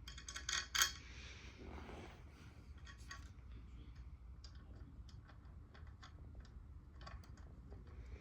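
Small hard parts clicking and clinking as they are handled: a quick run of loud clicks in the first second, a brief rustle, then scattered light ticks.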